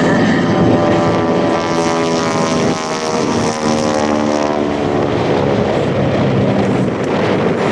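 A 1952 North American Harvard Mk IV's Pratt & Whitney R-1340 Wasp radial engine and propeller, running loud and steady during an aerobatic display pass. The engine note is clearest in the middle of the passage.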